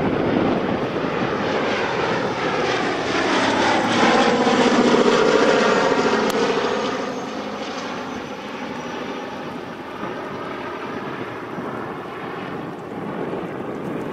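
A Boeing B-17G Flying Fortress's four Wright Cyclone radial engines running in a low fly-past. The engine sound grows to its loudest about five seconds in, its pitch falls as the bomber goes by, and then it fades as it banks away.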